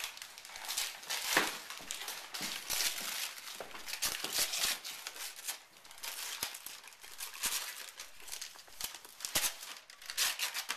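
Wrapping paper being torn and crumpled by hand as a present is unwrapped, in a run of irregular rips and crinkles.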